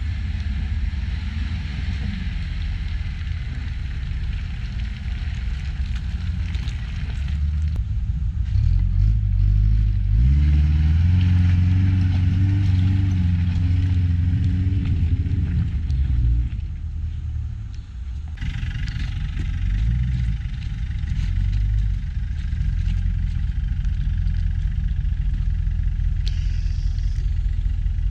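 Land Rover 4x4 engine running under load off road: it revs up about a third of the way in, holds high for several seconds, then eases off, with a shorter rise in revs a little later.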